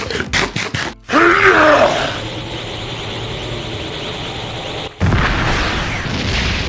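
Edited-in cartoon sound effects. A brief bit of music gives way, about a second in, to a short deep growling groan. A steady electric-sounding hiss follows, and a louder rushing whoosh with a low rumble comes in near the end.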